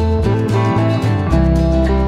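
Background music with a guitar over a steady beat.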